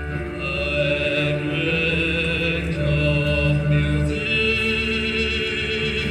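Music with slow, sustained singing or choir-like voices, the held notes changing about once a second.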